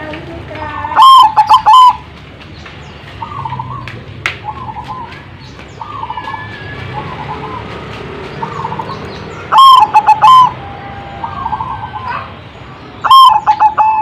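Zebra doves (perkutut) cooing: three loud bursts of rapid, staccato coo notes, about a second in, about ten seconds in and near the end, with fainter repeated cooing in between.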